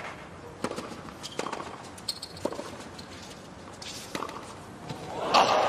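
Tennis ball struck by rackets and bouncing on a hard court in a short point opened by a serve: several sharp pops about a second or less apart. Near the end a crowd starts cheering and applauding.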